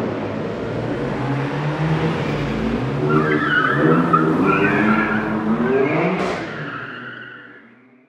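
A car engine running with squealing tyres, then a sharp whoosh about six seconds in, after which the sound fades out.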